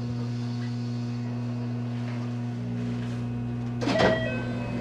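JR West 223 series electric train standing at a station with a steady electrical hum, a low tone with its octave above. A short, louder burst comes about four seconds in.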